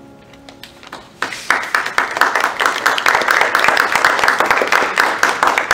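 The final chord of a grand piano fades away, and a few scattered claps about half a second in turn into full audience applause from just over a second in, dense and steady to the end.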